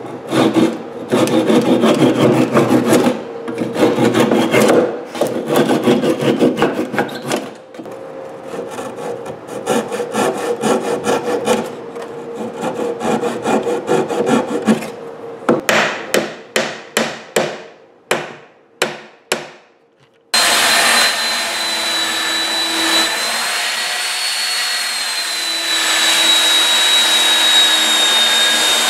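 Fine-toothed hand saw cutting dowel stubs off flush with a wood surface, rapid back-and-forth strokes, followed by about ten separate scraping strokes of a blade paring the wood. About twenty seconds in, a Porter-Cable belt sander starts suddenly and runs steadily on the wood with a high whine.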